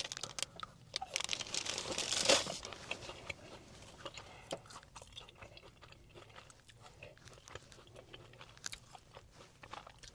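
Close-miked mukbang eating: bites and chewing of food, with many small crackles and clicks, a louder burst about two seconds in, then thinning out.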